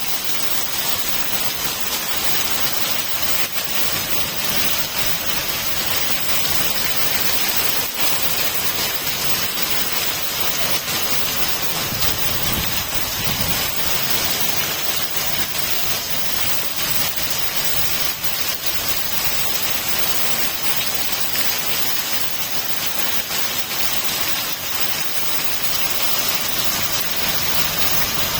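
Steady rushing noise of water, like heavy rain, even and unbroken. A low rumble swells briefly about twelve seconds in.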